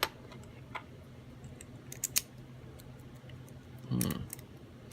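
A few sharp, separate metal clicks as a key is tried in an American Lock 5200 padlock, with a brief low murmur about four seconds in.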